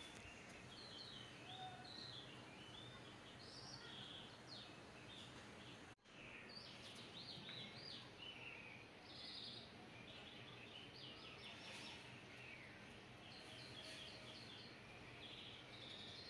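Faint, busy chirping of small birds over a low steady hiss.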